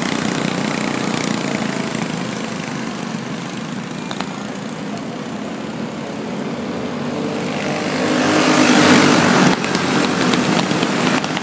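A pack of racing go-kart engines running flat out around a dirt oval, a steady buzzing drone that swells loudest as the karts pass close by about eight to nine seconds in, then drops suddenly.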